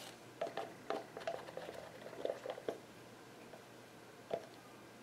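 Light clicks and taps of a plastic bottle and plastic cup being handled while resin is poured, a cluster of them in the first three seconds and one more a little past four seconds.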